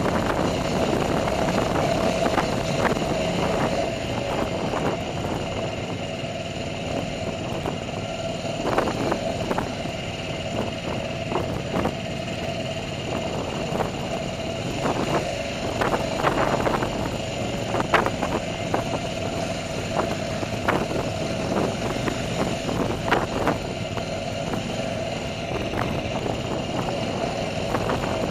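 Dirt bike engine running steadily while riding over rock, with short knocks scattered throughout.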